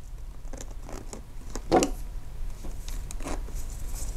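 Hands working on an RC crawler's steering parts: scattered light clicks and rustles, with a louder clack just under two seconds in and another a little after three seconds.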